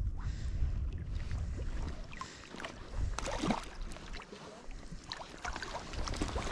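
Wind rumbling on the microphone over small lake waves lapping and splashing close by. The wind is strongest in the first two seconds and then eases, and there is a louder splashy moment about three seconds in.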